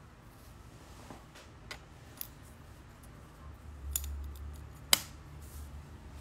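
Light clicks and taps of fingers handling the smartphone that is recording, with a few small clicks, one sharp loud click about five seconds in, and a low handling rumble in the second half.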